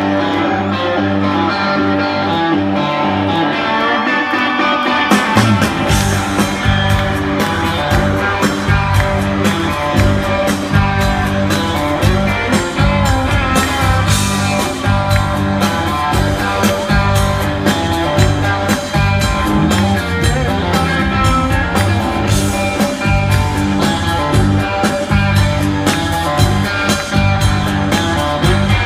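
Live country-rock band playing an instrumental passage led by electric guitar, heard through the concert PA. Drums and deep bass come in fully about five seconds in.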